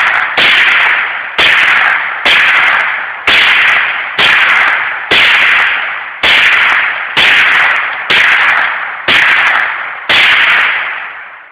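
Marlin Model 60 .22 semi-automatic rifle fired about once a second, around a dozen shots, each followed by a long echoing ring, emptying the magazine. The last shot comes near the end.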